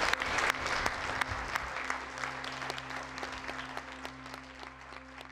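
Audience applauding at the end of a speech, the clapping fading away steadily over a few seconds.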